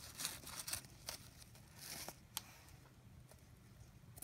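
Dull scissors struggling through satin ribbon: short, faint rasping cuts near the start and again about two seconds in, with a few sharp clicks of the blades.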